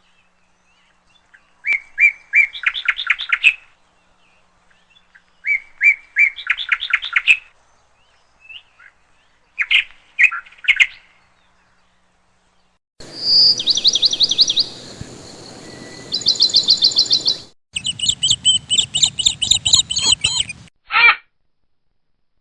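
Budgerigars (parakeets) chirping in separate bursts of short repeated notes running into quick trills. From about the middle, faster high trills come over a background hiss that starts and stops abruptly with each burst.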